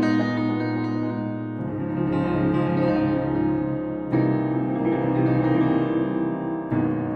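Solo piano tune played on a Keybird X1 piano: held chords under a melody line, with fresh chords struck about every two and a half seconds.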